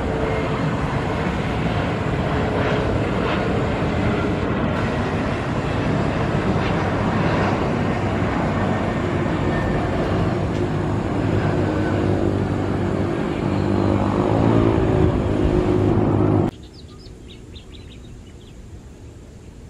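A Bombardier CRJ1000 regional jet's engines running as it comes in to land: a loud, steady jet rush over a low hum, swelling a little before it cuts off abruptly near the end. A much fainter jet sound from another airliner on approach follows.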